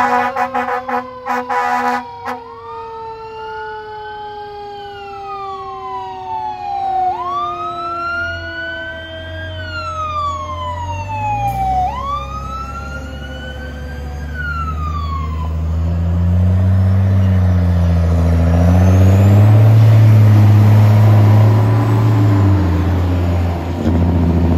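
Fire truck sirens: one wails up and down three times, each rise and fall taking a couple of seconds, while another siren tone slides slowly down beneath it. In the second half the sirens fade, and a heavy truck's engine grows loud as the trucks pull away.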